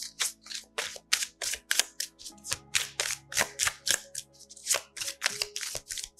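A tarot deck being shuffled by hand: a steady run of short card snaps, a few each second. Soft background music plays underneath.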